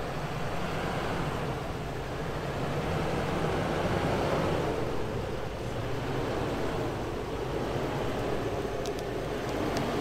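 Heavy-duty pickup truck's engine running at low speed as it drives slowly up a snowy track, with wind on the microphone.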